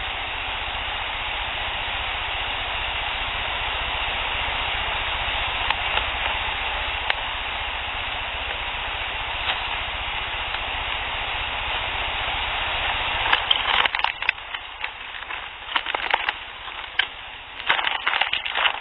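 Field recording with a steady hiss and a few faint ticks, then from about two-thirds in irregular crackling and rustling close to the recorder, which the recordist attributes to a small animal.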